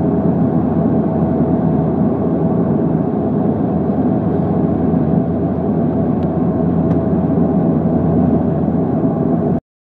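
Airliner cabin noise on final approach: a steady rush of engine and airflow noise with the main landing gear extended, moments before touchdown. It cuts off suddenly near the end.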